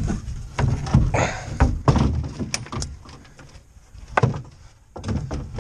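Wooden 2x4 boards of a lifting frame being shifted and set down in a pickup's bed, knocking and thunking against the bed several times, one knock about four seconds in louder than the rest, over a low rumble.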